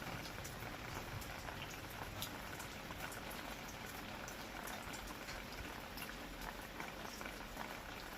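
Steady rain, with many scattered individual drops tapping close by.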